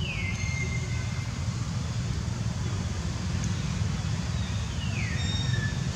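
Steady low rumble of outdoor background noise, with two high calls about five seconds apart that each drop in pitch and then hold briefly.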